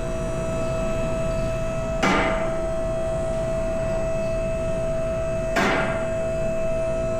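Background music: steady sustained tones with two sharp struck hits, about two and five and a half seconds in.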